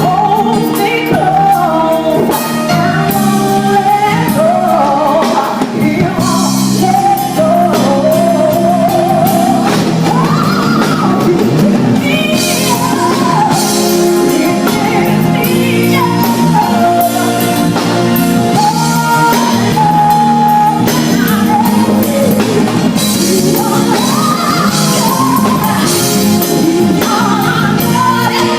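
A lead singer performing a slow song with a live band, drums and guitar under the voice.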